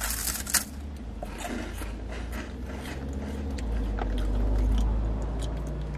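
Crisp snack pieces bitten with a loud crunch at the start, then chewed, with small crackles running on. A low rumble swells around the middle and fades near the end.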